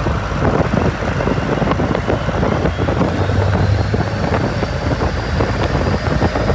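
Cummins QSB 6.7 six-cylinder turbo-diesel of a 9 m speedboat running under way at speed, a steady loud drone mixed with water rush and wind on the microphone. The engine is working against a propeller that the owner judges too heavy, so it cannot reach its full revs.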